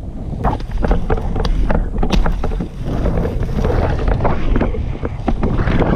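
Wind buffeting the microphone over the rumble of inline skate wheels rolling on asphalt, with frequent sharp clicks and knocks.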